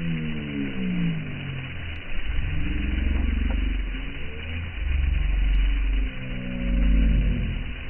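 An engine running and revving up and down, its pitch falling and rising several times over a heavy low rumble.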